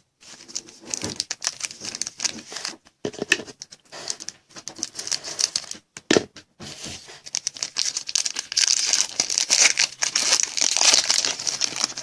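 Crinkling and tearing of a foil trading-card pack wrapper being opened and handled, with scattered small crackles that grow denser and louder over the last few seconds.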